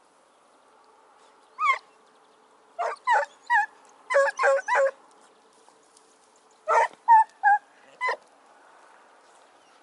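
Pack of hare hounds giving tongue in short, high yelping barks, about a dozen in quick clusters, as they work a hare's scent trail.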